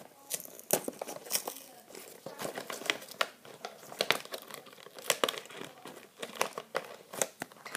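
Plastic toy packaging and sticky tape crinkling and crackling in quick, irregular snaps as they are handled and pulled apart.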